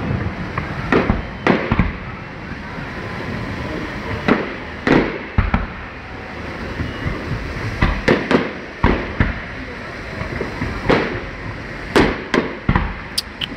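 Fireworks display: aerial shells bursting in irregular sharp bangs, some in quick pairs, over a steady background hiss. Near the end a fast run of crackles begins.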